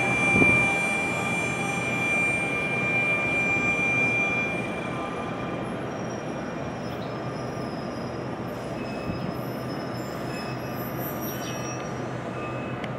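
NJ Transit Arrow III electric multiple-unit train pulling into a station, with a steady high-pitched squeal as it slows. The squeal fades about four and a half seconds in, leaving the quieter steady noise of the train.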